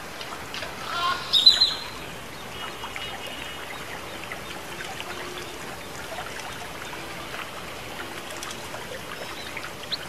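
Water trickling steadily down a stone fountain, with a short, loud bird call about a second in.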